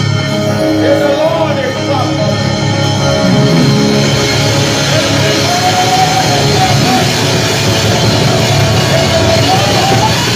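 Loud, steady band music with a melody line that wavers up and down.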